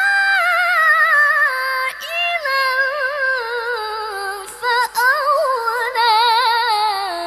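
A woman's voice chanting Quran recitation in melodic tajwid style through a microphone: one long ornamented phrase full of rapid wavering turns that sinks gradually in pitch and ends near the close.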